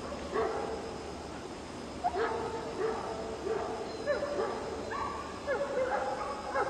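A dog giving short, high yips and whines over and over, unevenly spaced, about ten in a few seconds.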